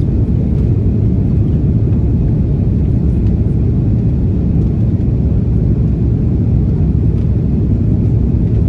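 Steady low rumble inside the cabin of an Airbus A330-300 in the climb: the Rolls-Royce Trent 700 engines and airflow heard from a window seat over the wing.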